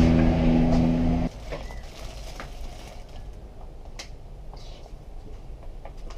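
A loud, steady, engine-like hum that cuts off abruptly about a second in. Then quiet kitchen clatter: a few light clicks and knocks as cooked noodles are packed into foam takeaway boxes.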